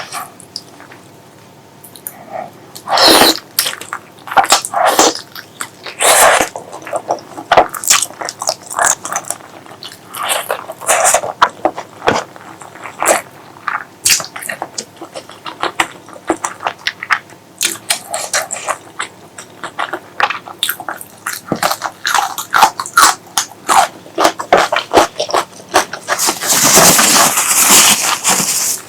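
Close-miked wet chewing and lip-smacking of spicy pork leg curry with rice: irregular sharp smacks and clicks. A longer, louder noisy stretch of a few seconds comes near the end.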